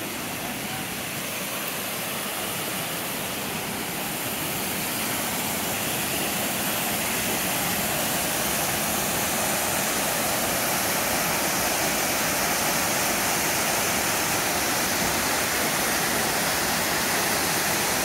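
A waterfall: a steady rush of falling water pouring into a pool, growing gradually louder through the first half and then holding steady.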